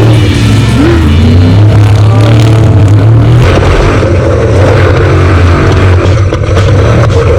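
Off-road race vehicle's engine running hard, its pitch rising and falling as it revs, then settling to a lower note about halfway through.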